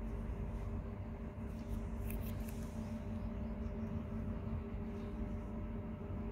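Steady low hum at a constant pitch, with a few faint rustles about two seconds in.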